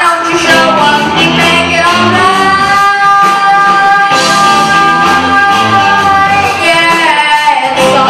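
Young rock band playing live: electric guitar, bass and drum kit under a boy singer, who holds one long note through the middle and then lets it fall away.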